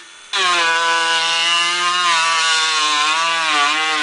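Dremel rotary tool's high-speed motor whining as it grinds the aluminum AR-15 receiver, its pitch wavering slightly as the bit presses into the metal. It cuts out for a moment at the very start, then runs steadily.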